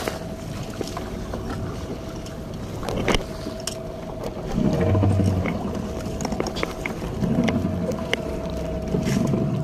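Fishing boat's motor running steadily at sea, a constant hum under the wash of water, with scattered knocks on the boat and low swells in the sound about halfway through and near the end.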